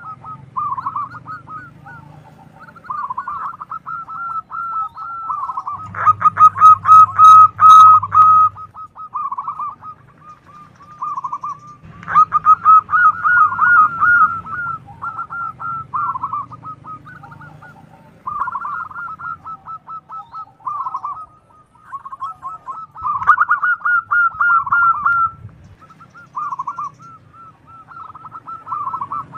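Zebra doves (perkutut) cooing: phrase after phrase of quick, clipped notes with only short gaps, loudest about six to eight seconds in.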